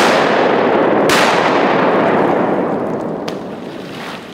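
Shotgun blasts from a duck hunting party: a very loud shot, a second about a second later, and a third, fainter crack about three seconds in. Each shot has a long echo that rolls away through the flooded timber.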